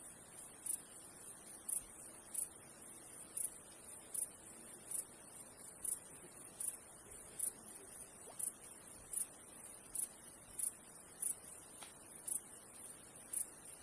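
A high-pitched insect chirping in a steady, regular rhythm, about one and a half chirps a second, over a continuous high buzz.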